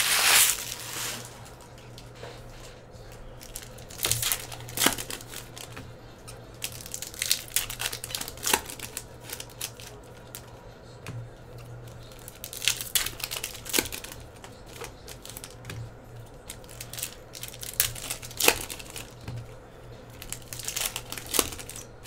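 Hockey trading cards being handled by hand: crinkling and rustling, loudest in the first second, then scattered short rustles and sharp card snaps every few seconds, over a low steady hum.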